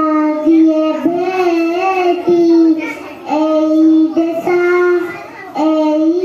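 A young girl singing a patriotic song solo, unaccompanied, in long held phrases with short breaths between them.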